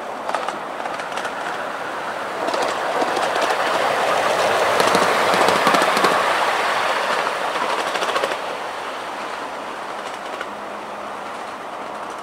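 A 7¼-inch gauge miniature train, a model diesel locomotive hauling a riding truck, runs past on the track. Its wheels rumble and click over the rail joints, swelling to loudest as it passes close about halfway through and dropping off sharply soon after as it moves away.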